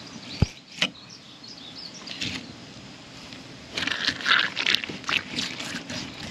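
A knife blade scraping along a common carp's scaly skin on a plastic cooler lid, in short scraping strokes that come thick and fast from about four seconds in. There is a single sharp knock about half a second in.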